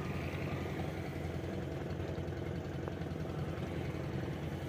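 An engine idling steadily: a low, even hum with a fast pulse. There is a faint click about three seconds in.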